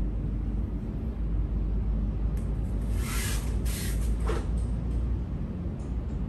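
Steady low room rumble, with two quick fabric swishes from a stiff karate gi as the arms sweep into the ready stance, about two and a half to four seconds in.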